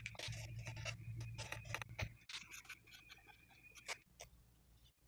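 Faint scratching and light tapping of a paint pen writing signatures on painted surfaces, broken off abruptly a couple of times.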